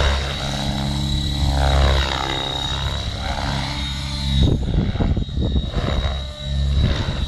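Align T-Rex 700E electric radio-controlled helicopter in flight: main rotor blades whirring with a steady high whine from the motor and drive gears, the pitch sliding up and down as it swoops past. About halfway through, the even whir turns choppier and rougher.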